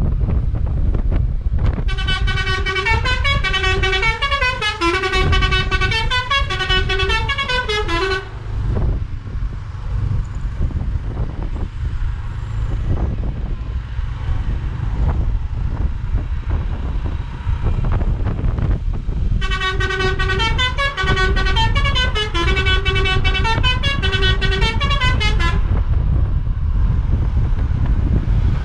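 Basuri telolet horn on a bus, a set of air horns playing a quick stepping tune, twice: about two seconds in for some six seconds, then again around twenty seconds in for about six seconds. A heavy low rumble of wind on the microphone runs underneath.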